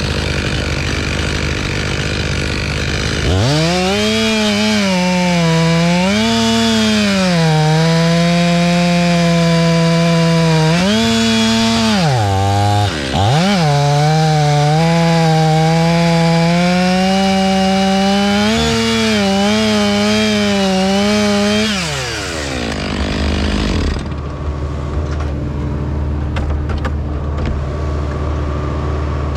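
Chainsaw cutting wood at high revs, its engine note sagging under load and recovering over and over, with a brief drop and climb about halfway through. About 22 s in the saw winds down, leaving a lower, steady engine hum.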